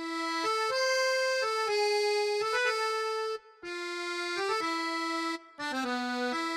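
An accordion plays a simple melody of held notes, a short children's tune that stops briefly twice.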